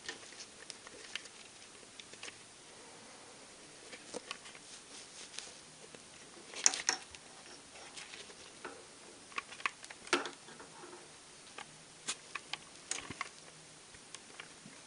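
Handling noise from a hard ABS plastic airsoft helmet, a MICH 2000 replica, turned over in the hands: scattered taps, clicks and rustles of fingers and straps against the shell. The louder knocks come about six to seven seconds in and again around ten seconds.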